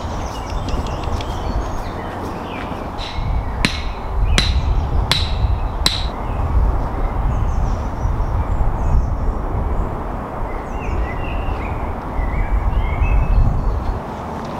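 Five sharp, ringing metallic strikes come a little under a second apart, starting about three seconds in, over a steady low wind rumble. Birds chirp faintly later on.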